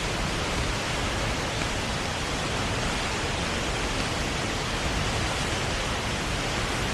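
South Falls waterfall roaring: a steady, unbroken rush of falling water with no let-up.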